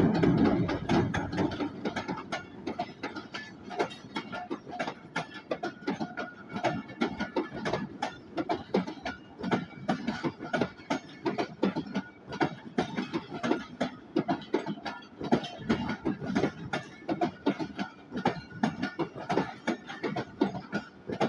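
Passenger coaches of a train rolling past, their wheels clicking and knocking over the rail joints in an irregular run. The diesel locomotive's rumble is loudest at the start and soon falls away as it moves on.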